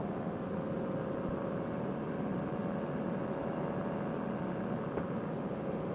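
Fresh Breeze Monster paramotor engine and propeller running steadily in cruise flight: a constant drone with a steady hum in it.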